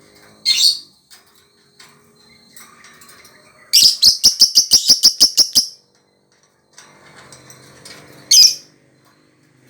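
Lovebird calling: a single shrill chirp, then a fast run of about a dozen sharp chirps lasting about two seconds, then another single shrill chirp near the end.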